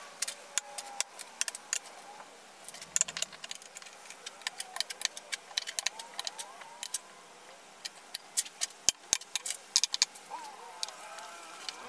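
Steel drill bits and router bits clicking one by one onto magnetic tool bars, a long run of sharp, irregular metal clicks.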